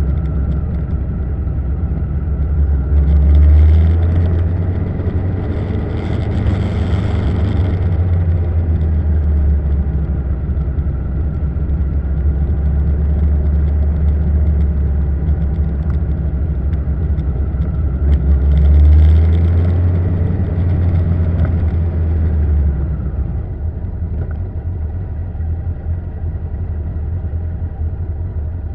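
Motorcycle engine running at riding speed, heard from on board the moving bike. It swells louder a few seconds in and again at about nineteen seconds, and eases off near the end.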